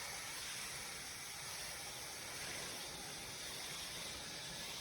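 Hose misting nozzle spraying a fine, steady hiss of water onto a curing concrete slab, keeping the surface wet.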